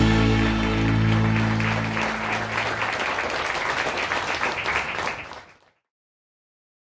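The final held chord of a Christian song fades out while an audience claps. The applause runs on alone for a few seconds and then cuts off abruptly.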